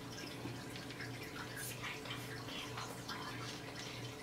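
Aquarium filter water trickling and splashing into the tank, with many short irregular drips over a low pump hum.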